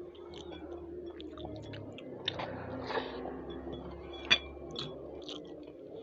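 Close-miked chewing of food, with many small wet mouth clicks and one sharp, loud click about four seconds in, over a low steady hum.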